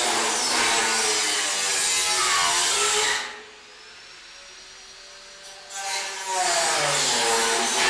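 A power tool running in long stretches, its pitch wavering as it works, stopping for about two and a half seconds in the middle before starting again.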